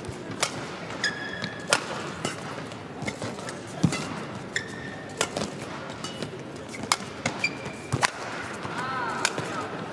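Badminton rally: sharp cracks of rackets striking the shuttlecock, about one a second, mixed with short high squeaks of players' shoes on the court mat, over a steady arena crowd murmur.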